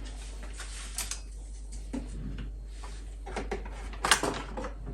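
Scattered light clicks and knocks of kitchen utensils and cookware being handled, with a small cluster about four seconds in, over a steady low hum.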